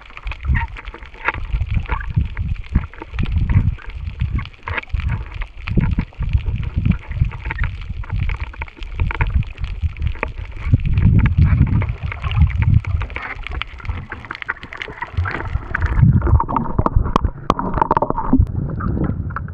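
Water sloshing and gurgling around a submerged camera while snorkeling, heard as muffled low surges with scattered clicks and crackles. The sound thins out and turns lighter near the end as the camera nears the surface.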